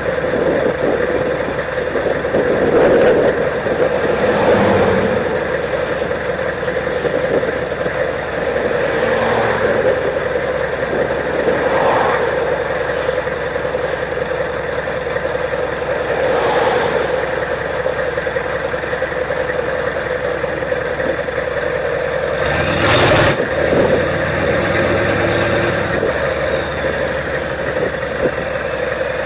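Straight-piped 6.5 Detroit Diesel turbo-diesel V8 running steadily while the truck cruises, its note surging briefly several times. About two-thirds through there is a brief louder burst, followed by a faint high turbo whistle that falls away.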